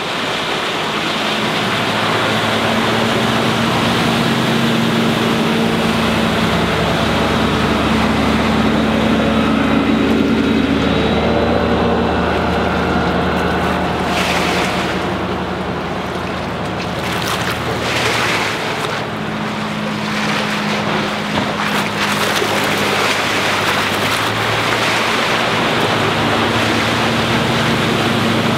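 A MerCruiser 5.0 MPI V8 stern-drive engine running at speed on the Larson Cabrio 240 sports cruiser, over the rush of its hull and wake on the water. The engine tone drops away for a few seconds about halfway through, then comes back.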